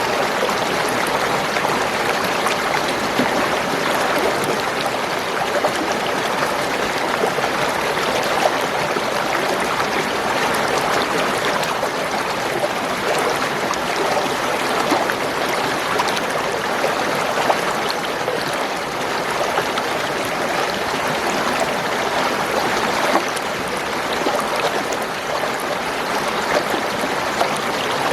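Spring water gurgling and trickling, a steady flow with small splashes scattered through it.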